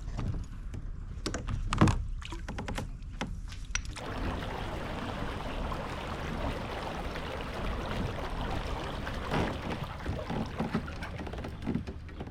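Kayak on the water: several sharp knocks against the boat in the first few seconds, then a steady wash of water noise with a few more knocks.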